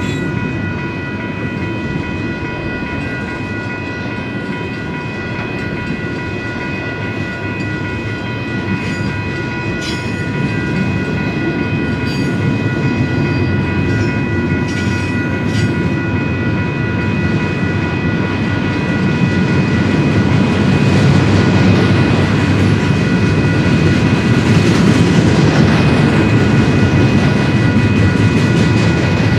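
A double-stack container freight train rolling past, its cars and wheels making a steady rumble that grows louder about two-thirds of the way through. Several steady high-pitched tones ring over the rumble throughout.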